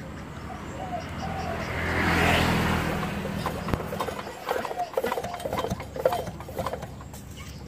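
A motor vehicle's engine passes, swelling to its loudest about two seconds in and then fading, followed by scattered light clicks and knocks.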